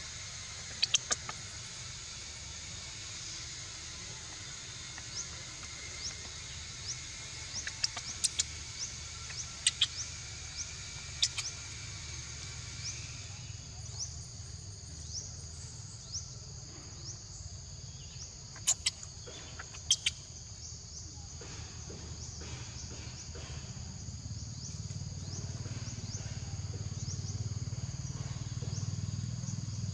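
Steady high-pitched insect chorus from the surrounding vegetation, with short rising chirps repeating about once a second. A few sharp clicks stand out, and a low rumble builds over the last several seconds.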